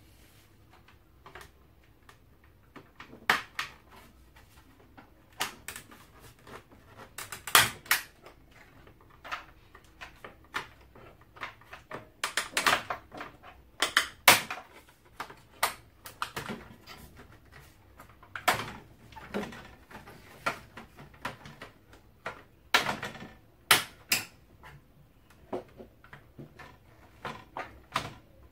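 Sharp, irregular plastic clicks and knocks from working the casing of an Electrolux PA26G water purifier as its front grille is worked free of its side latches. They come in clusters, and the loudest is about halfway through.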